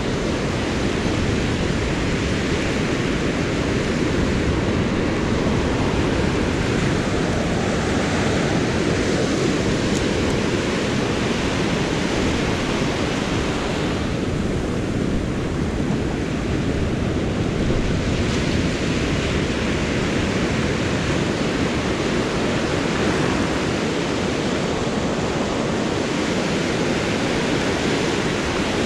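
Surf breaking and washing up a sand beach: a steady, unbroken rush of waves.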